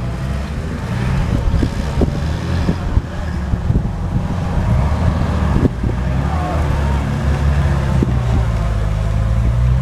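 Engines of off-road 4x4 trucks running under load as they crawl up a muddy bank, the engine note shifting as they climb, with a few sharp knocks.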